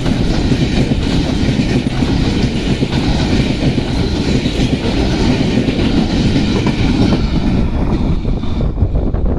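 Freight wagons of a fast parcel train rolling past close by: a loud, steady rumble and rattle of wheels over the rail joints. About seven seconds in, the sound thins as the train draws away.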